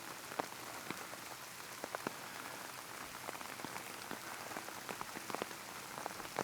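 Steady rain falling, with single drops striking close to the microphone as sharp, irregular taps.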